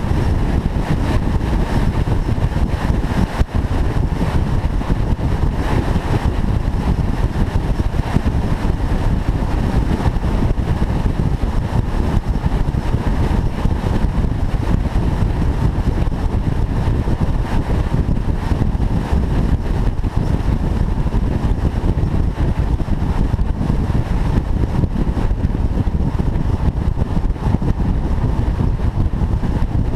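Car driving at a steady pace: a steady rumble of engine, tyre and wind noise with no revving or gear changes.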